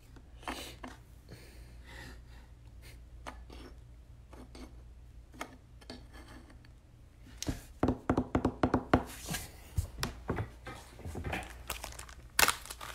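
Trading cards and their packaging being handled on a table: a run of small clicks, taps and rustles, sparse at first and busier from about halfway through.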